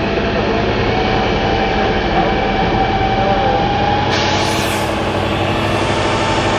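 Diesel engine of a Tatra 813 8x8 trial truck running loudly under load as it crawls across a steep slope, its pitch slowly rising.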